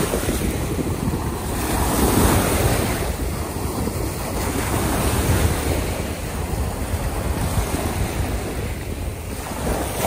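Small bay waves washing up and breaking in foam on a sandy shore, the wash swelling and easing as each wave comes in. Wind buffets the microphone with a low rumble.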